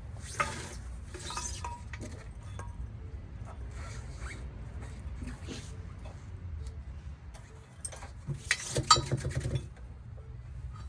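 Intermittent metal clinks and rattles from tools and wheel parts being handled during a tire change, over a low steady rumble. A denser run of rapid clicking comes near the end.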